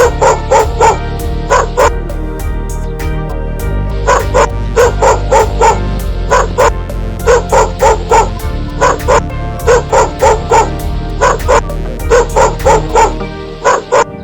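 A dog barking or yapping in quick runs of short, high barks, about three a second with short pauses between runs, over background music.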